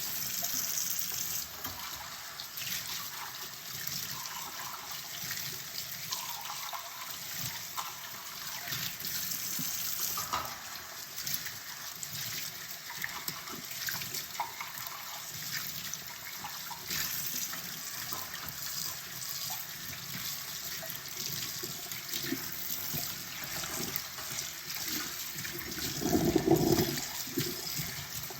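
Kitchen tap running into a sink during hand dishwashing, with small clinks and knocks of dishes throughout. A louder, fuller clatter or splash comes near the end.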